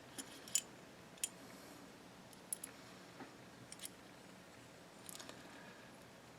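Sparse, faint clicks and light taps of small metal rifle bolt parts being handled: the firing pin and safety stud in a GSG-16 bolt. About a dozen clicks, the sharpest about half a second in, with a short run of ticks near the end.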